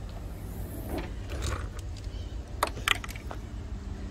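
A few light metal clicks and clinks of hand tools being handled, over a steady low hum.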